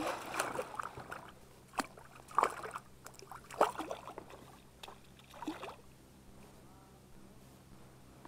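Water splashing and knocks against a small boat as a hooked pike is played in right under the hull, in several irregular bursts, then quieter for the last couple of seconds.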